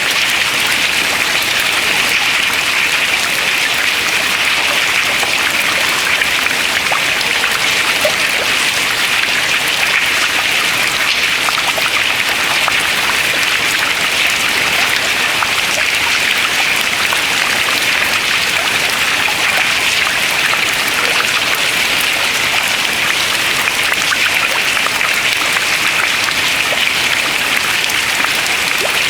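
Water dripping from ice into the water below: many drops falling in a dense, steady patter.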